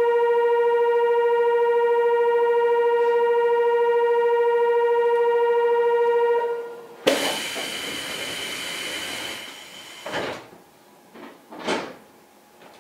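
Monorail station departure signal: a steady electronic tone held for about six and a half seconds, then cut off. About seven seconds in, a sudden hiss follows as the train's doors close, with two short sounds near the end.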